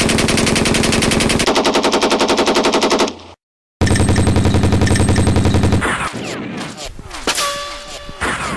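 Cartoon machine-gun sound effect: rapid automatic fire at about ten rounds a second in two long bursts, cut by a brief silence about three seconds in. About six seconds in, the firing gives way to quieter scattered clatter and short whistling glides.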